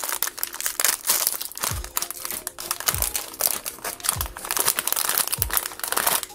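Metallic foil blind-box pouch crinkling as it is opened and handled by hand, with four soft low thumps about a second apart.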